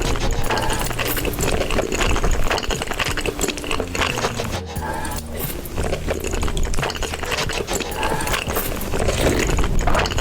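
Close-up chewing and crunching of food, with dense crackly bites, over background music.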